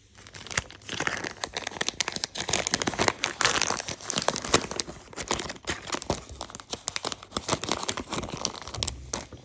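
Packaging being handled, crinkled and torn open by hand: dense, irregular crackling with no let-up, dipping briefly near the end.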